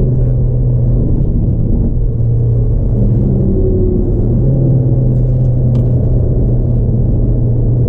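Renault Megane RS Trophy heard from inside the cabin at speed on track: a loud, steady engine drone mixed with road and tyre noise, its note briefly shifting around two to four seconds in.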